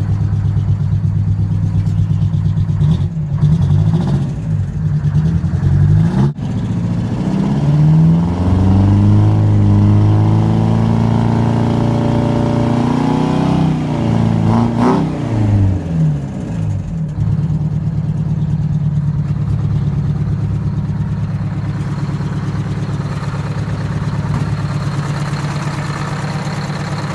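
Detroit Diesel 8V71 two-stroke V8 diesel running. It is revved up a few seconds in, held at higher revs, then dropped back to a steady idle about two-thirds of the way through.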